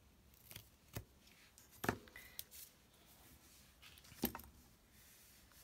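Faint handling sounds of double-sided adhesive tape being laid on and torn off cardstock, with three sharp taps as tools are handled, about one, two and four seconds in.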